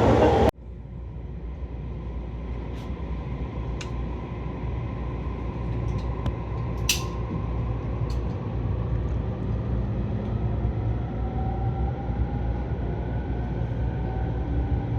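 Interior of a JR East electric commuter train running: a steady low rumble with a few light clicks. An electric traction-motor whine rises slowly over the last few seconds as the train gathers speed. A louder noise cuts off abruptly about half a second in.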